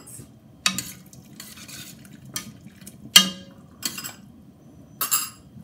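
A spoon stirring soup in a stainless steel pot, knocking and scraping against the pot about five times, the loudest knock a little after three seconds in.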